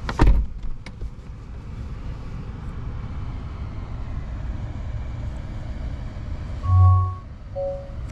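A heavy thump as the Lucid Air's driver door shuts, then a steady low hum in the closed cabin. Near the end, a deep tone with a few soft marimba-like notes begins, a chime or jingle.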